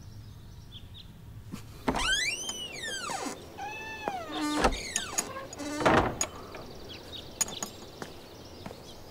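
A cat meowing three times: first a long call that rises and falls, then two shorter falling meows. A sharp thump follows about six seconds in.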